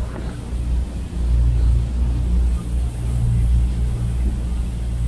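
Motor boat under way at speed: a steady low engine rumble with the churn of its wake, swelling and dipping.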